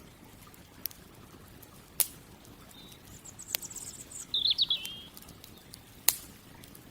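Campfire crackling, with a handful of sharp pops: the loudest about two seconds in and again near the end. A bird sings a short high trill in the middle, followed by a quick burst of chirps.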